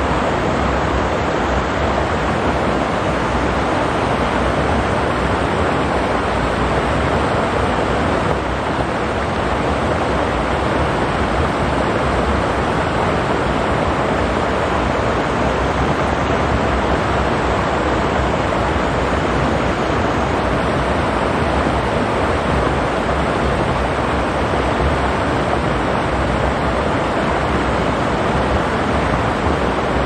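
Steady rush of a mountain stream flowing over rocks, an even wash of water noise without a break.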